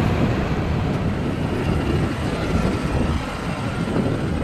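Propeller-driven vintage warbird flying over, its piston engines giving a steady, loud drone.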